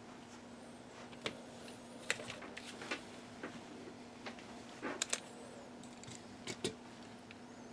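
Small clicks, taps and light rustles of hands handling a flux tube, a plastic bag of wire and small tools on a rubber workbench mat, scattered irregularly, over a faint steady hum.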